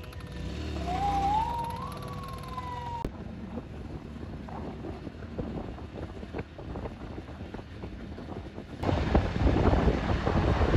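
A vehicle siren wails, climbing in pitch and then slowly falling, and stops abruptly about three seconds in. Steady car road noise follows, with wind buffeting the microphone, and it grows much louder about nine seconds in.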